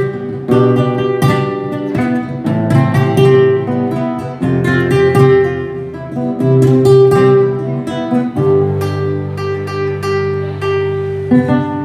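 Instrumental break of a live song: acoustic guitar strummed in rhythm over sustained accompaniment, with no singing.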